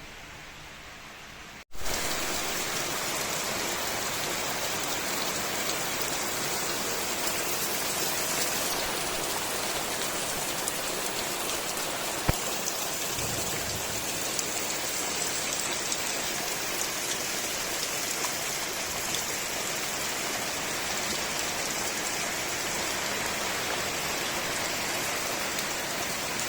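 Steady downpour of rain, an even hiss that comes in suddenly about two seconds in after a faint hiss. One sharp tap sounds near the middle.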